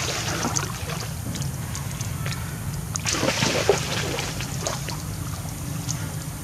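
Shallow muddy water sloshing and splashing as a macaque wades and swims through it, with scattered splashes that grow busier about three seconds in, over a steady low rumble.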